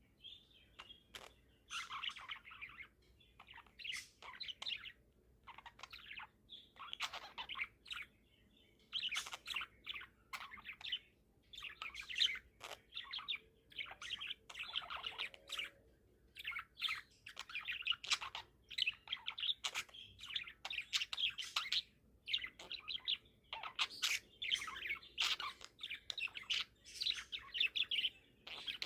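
A young budgie chirping and chattering in quick, warbling phrases, with short pauses between bursts.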